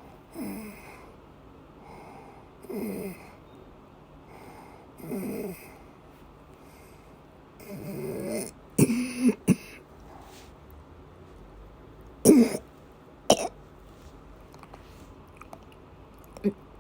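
Coughing during an asthma attack: four noisy breaths, each falling in pitch, come about every two and a half seconds. They give way to sharp coughs, three in quick succession about nine seconds in, then single coughs later.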